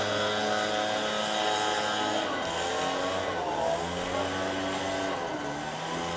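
A steady motor hum whose pitch dips about two seconds in and rises again near five seconds.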